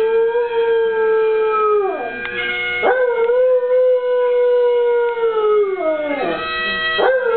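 An Eskimo sled dog howling to bagpipes. There are long, held howls that sag in pitch as each one ends: one finishes about two seconds in, a second runs from about three seconds to past six, and a third starts near the end. The bagpipes' steady drone sounds underneath.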